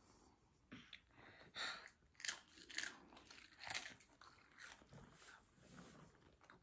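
A child biting and chewing blue Takis rolled tortilla chips: a faint string of short, crisp crunches at irregular intervals.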